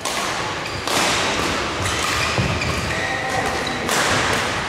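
Badminton rackets striking the shuttlecock during a men's doubles rally: several sharp hits about a second or more apart over the hum of the hall.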